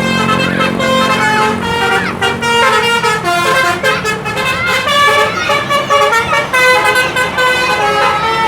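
Bus basuri telolet horn playing a tune: a run of loud horn notes stepping from pitch to pitch without a break. A bus engine runs underneath in the first couple of seconds.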